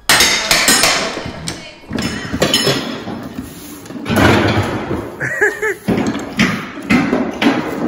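A run of thuds and knocks, thickest in the first two seconds, with brief snatches of voices about five seconds in.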